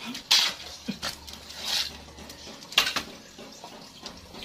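A shovel scraping and turning a heap of wet concrete mixed by hand on the ground: about four wet, gritty scrapes roughly a second apart.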